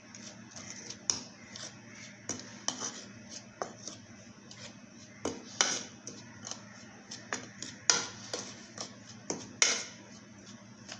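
Metal spoon stirring a dry flour mix in a ceramic plate, clinking and scraping against the plate in irregular taps, with a few louder knocks in the second half.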